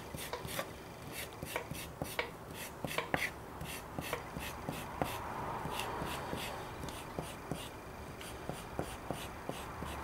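Metal spoon scraping along a yucca leaf on a wooden board in quick, repeated short strokes, a few a second, stripping the last of the leaf's flesh off its fibres.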